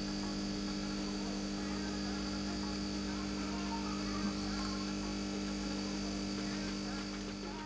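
Small electric gas suction pump (mini gas booster machine) running with a steady hum, tested after repair for the weak gas intake while its outlet pressure is checked by hand.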